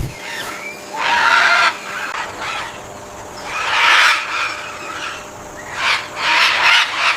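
Blue-and-gold macaws squawking: three loud, harsh calls, about a second in, around four seconds and near the end, with fainter calls between.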